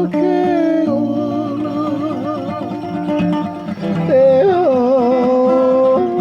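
Hymn sung with acoustic guitar accompaniment: a voice carries a wavering melody over plucked chords and holds a long note near the end.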